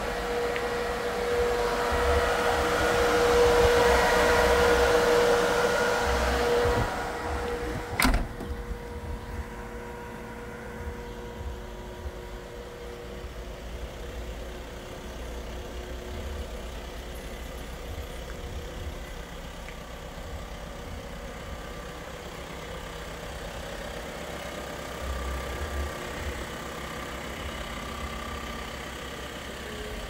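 Refrigeration evaporator fan blowing steadily with a humming tone inside the van's open insulated cargo box. About eight seconds in there is a single sharp bang, the tailgate shutting. After it the VW T6.1's 2.0-litre four-cylinder diesel idles steadily and more quietly.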